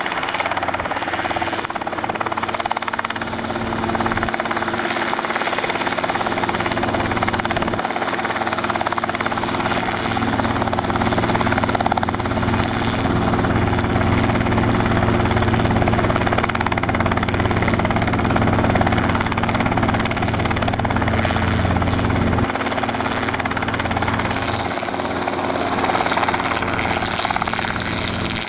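Robinson R22 helicopter hovering low, its piston engine and rotor running steadily. The low drone grows stronger for a stretch in the middle as the helicopter comes closer, then eases off again.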